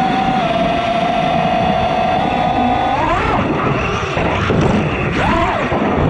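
FPV quadcopter's brushless motors whining at a steady pitch, then swooping up and down in quick rises and falls from about halfway through as the throttle is worked.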